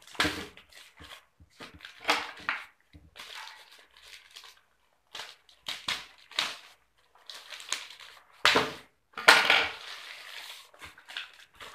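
Plastic courier mailer bag crinkling and rustling in irregular bursts as it is pulled open by hand, loudest near the end.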